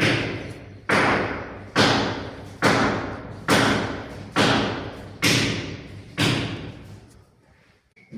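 Eight heavy thuds, evenly spaced a little under a second apart, each fading out slowly before the next.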